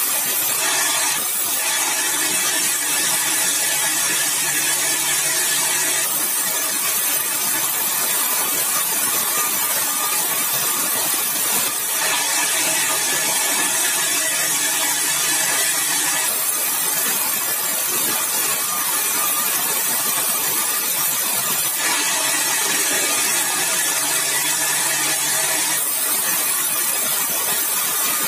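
Sawmill cutting yellow balau (bengkirai) hardwood: a steady, loud, hissing saw-and-motor noise that changes slightly in character every five seconds or so.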